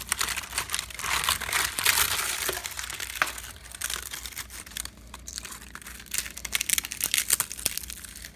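Dry crackling and crunching of termite-damaged wood, a dense run of small sharp clicks. It is heaviest over the first half, eases off, then picks up again briefly near the end. To a homeowner this is the sound of termite damage in the house.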